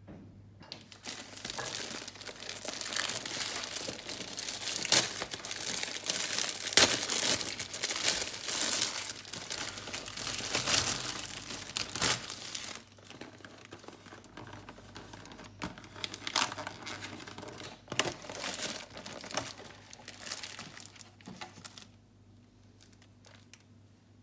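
Crinkling and rustling of something crinkly being handled, with many sharp crackles: loudest for roughly the first twelve seconds, then lighter and more scattered, stopping a couple of seconds before the end.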